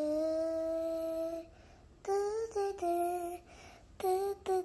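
A voice humming a slow, simple tune: one long held note, then after a short pause a few shorter notes, some sliding slightly upward.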